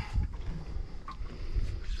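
Wind buffeting the microphone and water sloshing against a small boat's hull, with a brief squeak about a second in.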